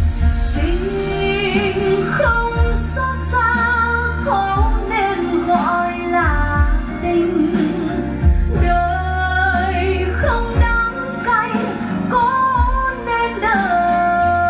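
A Vietnamese ballad with a woman singing held, vibrato-laden notes over a deep bass line. It is played from CD through Bowers & Wilkins 803 D3 floor-standing speakers driven by an Accuphase E-408 integrated amplifier.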